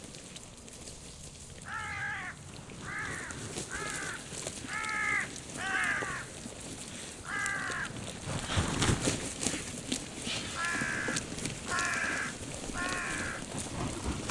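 Harsh, crow-like caws repeated about ten times, roughly one a second, in two runs. In the gap between them, about halfway through, comes a burst of low rumbling noise.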